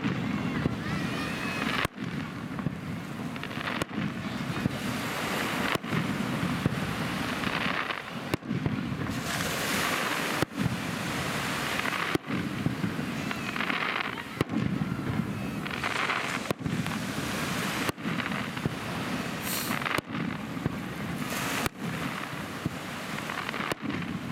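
Aerial firework shells launching and bursting one after another in a continuous barrage of bangs.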